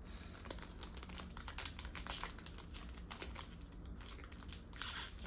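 Crinkling of a plastic trading-card pack wrapper being handled and torn open, with quick crackles throughout and a louder tearing rip near the end.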